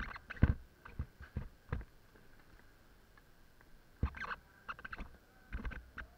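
Scattered knocks and clicks in small groups, the loudest about half a second in, over a faint steady hum.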